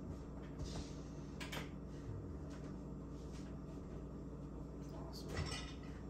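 A few faint clicks and light clatters over a steady low hum, the loudest cluster near the end.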